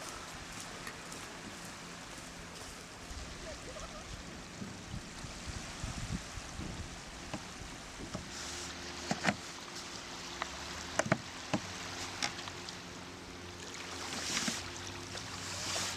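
Shallow sea water sloshing around a sea kayak being launched: a few sharp knocks about halfway through as the boat is set down and boarded, then paddle splashes near the end.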